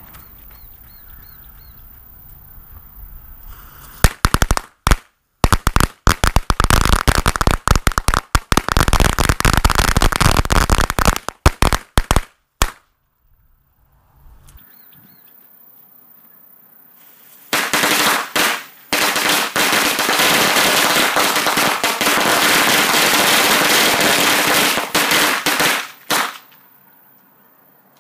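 Strings of Black Cat firecrackers going off in a rapid, dense crackling barrage starting about four seconds in and lasting about eight seconds; after a lull of a few seconds, a second barrage of about eight seconds follows.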